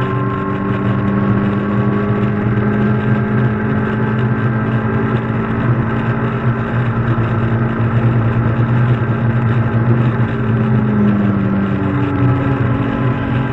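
Caterham Seven race car's four-cylinder engine running hard at steady high revs under racing throttle, heard onboard; its note dips slightly near the end.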